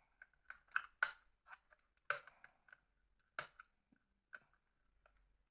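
Irregular sharp clicks and taps of a mobile phone's small parts being handled and fitted by hand, about a dozen, the loudest near one, two and three and a half seconds in.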